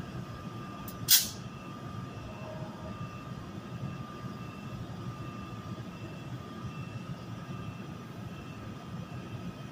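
An ALP-46A electric locomotive standing with its train, its equipment giving a steady hum with a thin, steady high whine. About a second in comes a short, loud hiss of air.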